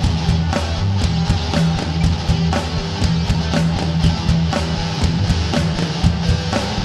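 Rock music with distorted electric guitar and a drum kit keeping a steady beat.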